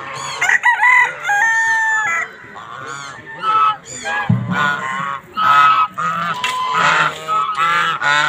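A flock of domestic geese honking over and over, many short calls overlapping.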